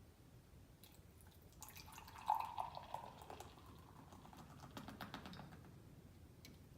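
Tecate Light beer being poured into a glass: a faint pour starting about a second and a half in and trailing off after a few seconds, with fine crackling fizz from the foam.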